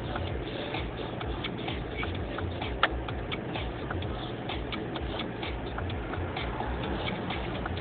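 Low, steady rumble inside a car cabin, with a scatter of light ticks over it and one sharp click about three seconds in.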